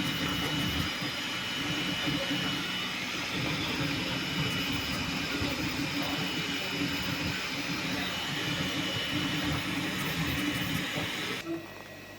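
3D printer running: a steady mechanical hum with a faint high tone, which cuts off suddenly near the end.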